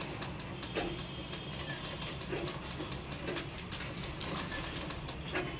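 Galaxy sewing machine running slowly, a steady hum under a rapid ticking of the needle, as it stitches small gathers into net fabric.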